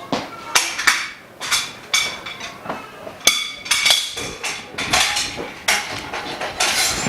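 Frame bars of a dust-free room's workbench frame being handled and fitted together: a string of irregular sharp clanks and knocks, some with a short ringing tone.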